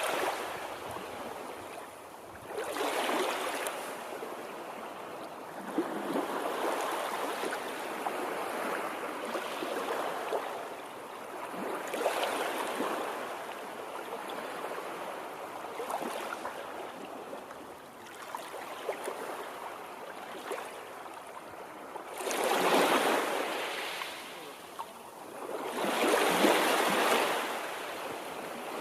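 Water washing in waves: a steady rush that swells and ebbs every few seconds, with two louder surges near the end.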